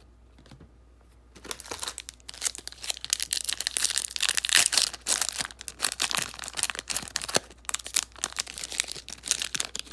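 Foil wrapper of a 2008 Upper Deck football card pack being torn open and crinkled off the cards, starting about a second and a half in.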